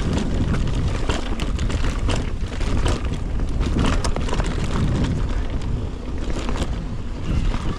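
Mountain bike riding over a rocky, gravelly trail: the tyres crunch on stones and the bike rattles with frequent short knocks, under steady wind rumble on the action camera's microphone.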